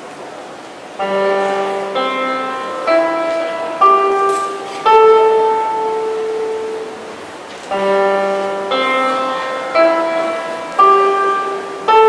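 Electronic keyboard with a piano sound playing a slow phrase of about five struck notes, each dying away, roughly one a second; the phrase is played twice.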